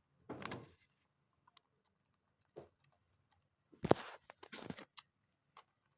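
A homemade paper squishy's wrapper being opened by hand: short crinkling rustles and small scattered clicks, with one sharp knock about four seconds in.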